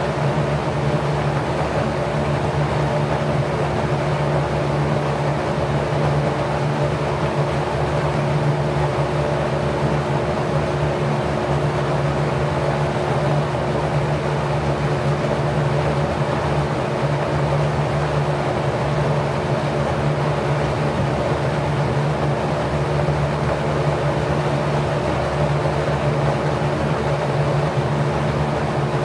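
Packard 99319 single-speed 1/5 hp electric motor running at about 1050 rpm, spinning a LAU 20-inch four-blade, 27° pitch propeller: a steady hum with an even rush of moving air.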